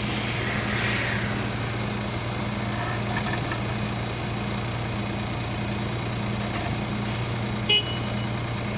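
Mini excavator engine running at a steady, low, even note. A short sharp squeak comes near the end.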